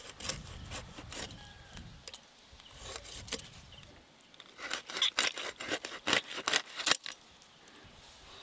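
A fish being scaled against the fixed curved blade of a bonti: short, sharp rasping scrapes as the scales are stripped. The strokes are sparse at first, then come fast and loud from about four and a half to seven seconds in.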